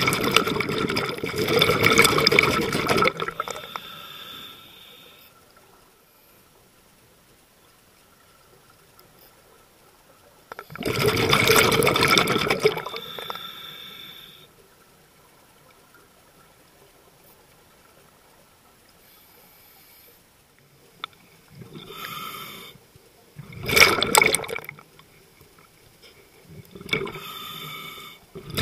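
Scuba breathing underwater through a regulator: loud bursts of exhaled bubbles four times, with softer hissing alongside them and long quiet spells between.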